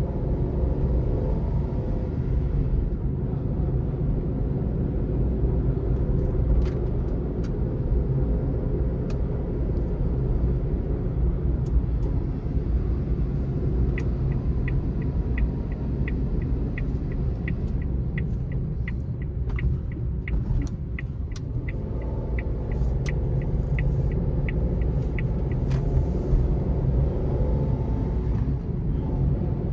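Steady low rumble of engine and road noise inside the cabin of a 2022 Suzuki Alto VXL AGS on the move, its 660 cc three-cylinder engine running. About halfway through, the turn-signal indicator starts ticking evenly, roughly two and a half clicks a second, and stops after about eleven seconds.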